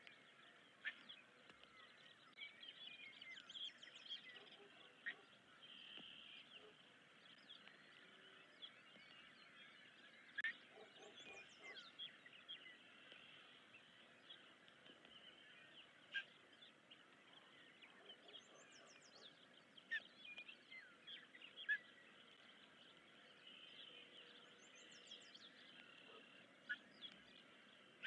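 Faint bird calls over a steady hiss: scattered short chirps and a brief high, falling trill repeated four times, about every seven seconds.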